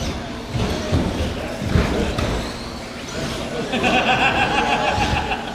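Electric stock-class RC trucks running on an indoor track, their motors whining. A steady pitched whine holds for about a second and a half past the middle of the stretch.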